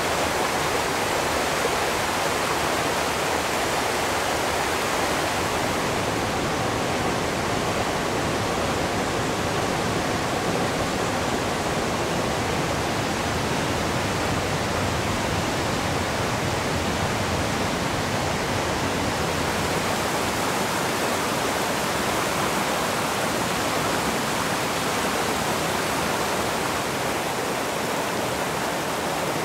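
Steady rushing water of a rocky stream running over rapids, an even, unbroken hiss with no tones or clicks.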